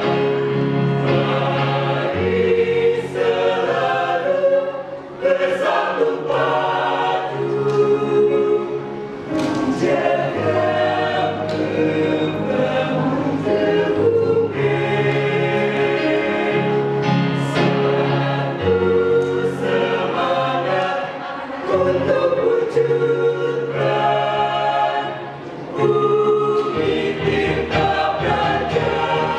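Mixed-voice choir of girls and boys singing a hymn in held chords, with low sustained bass notes beneath the upper voices and a few brief dips between phrases.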